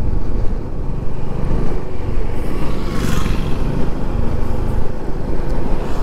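Motorcycle riding along a road, its engine running steadily under heavy wind rumble on the rider's microphone, with a brief hiss about three seconds in.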